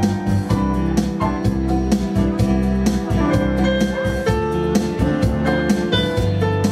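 Electronic keyboard music played through PA speakers: pitched notes over a sustained bass line, with a steady beat.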